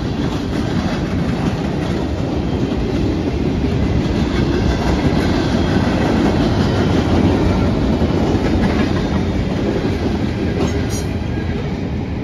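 Freight train cars rolling past close by at a grade crossing: tank cars, boxcars and covered hoppers giving a steady rumble of wheels on the rails, loudest mid-way and easing off near the end as the last car goes by.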